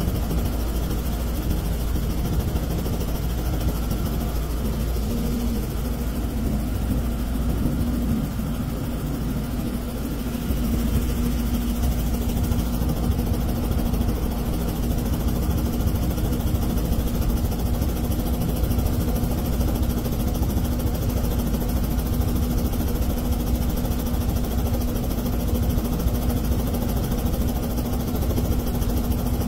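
Robinson R44 helicopter running on the ground, its Lycoming six-cylinder piston engine and rotors turning steadily, heard from inside the cockpit: a steady low drone with a constant hum. It gets a little louder about ten seconds in.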